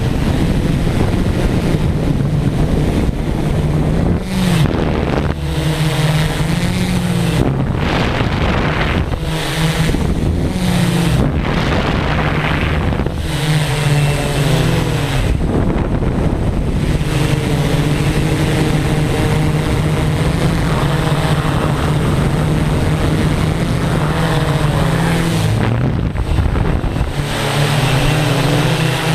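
Multirotor drone's electric motors and propellers running with a steady buzzing hum whose pitch keeps shifting up and down as the throttle changes, with wind noise on the microphone.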